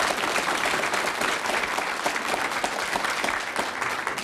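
Studio audience applauding with many hands clapping together in a dense, steady patter that thins out and dies away near the end.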